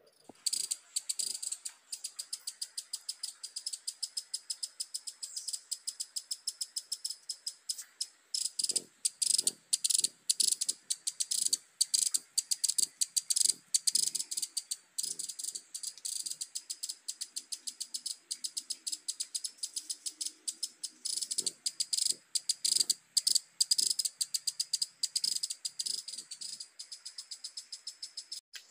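A forest insect calling in a fast, even train of shrill chirps, several a second, with faint low thuds underneath at times.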